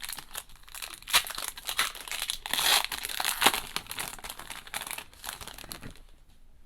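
Baseball card pack wrapper crinkling and tearing as it is ripped open by hand, dense and crackly for about six seconds before it dies down.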